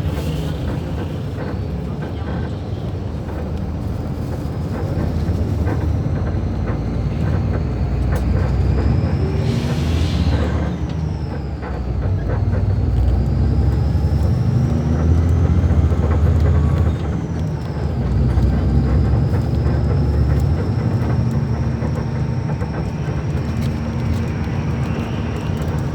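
Diesel engine of an Iveco-chassis Mascarello Roma M4 bus running under load. Its rumble and a high whine climb and drop back twice, near ten seconds and again near seventeen seconds. About ten seconds in, a brief hiss of air cuts through.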